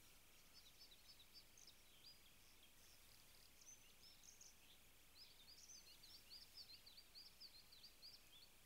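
Faint songbird singing distant high chirping phrases, then a quick run of repeated notes in the second half, over a steady hiss.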